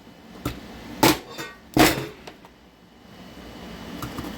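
Kitchen clatter: a light knock, then two loud, sharp knocks about three quarters of a second apart, and a few faint clicks near the end, as hard kitchen items or cupboard doors are handled.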